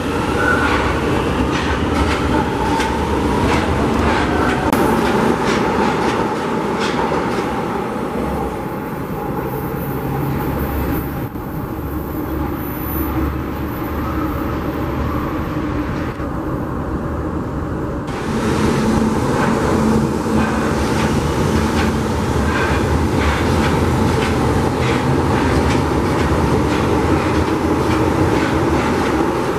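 São Paulo Metro electric trains running past on track: a steady rumble of steel wheels with quick repeated clicks over rail joints, quieter for a while in the middle and louder again from about two-thirds of the way through as a train passes close.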